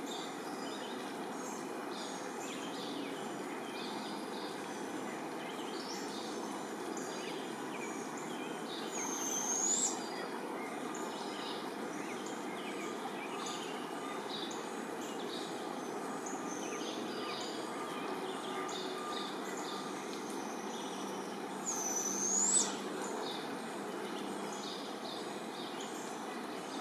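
Barred owlets giving begging calls: a screech that swells over about a second and ends rising in pitch, heard twice, about 9 seconds in and again about 22 seconds in. Small songbirds chirp and twitter throughout over a steady background hiss.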